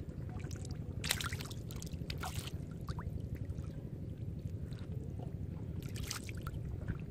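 Shallow water and wet mud sloshing over a steady low rumble, with short wet splashes about a second in, at about two and a half seconds and near six seconds, as eels thrash in the mud.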